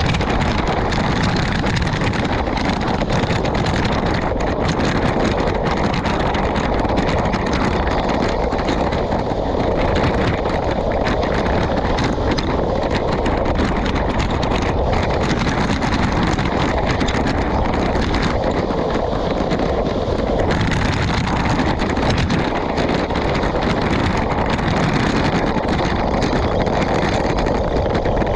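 Steady wind rushing over a bike-mounted GoPro's microphone while riding a road bike, with the rolling noise of the bike underneath. It is loud and unbroken throughout.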